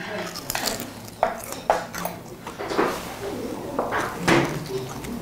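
Tableware clinking and tapping during a meal: a series of short, sharp clicks of chopsticks and dishes, the loudest two about a second and a half in.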